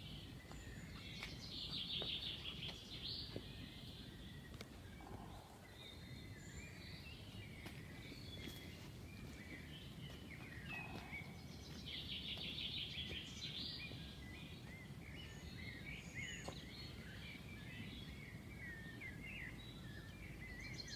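Songbirds singing and chirping over a steady low rumble. One bird sings a fast trilled phrase about a second in and repeats it about ten seconds later.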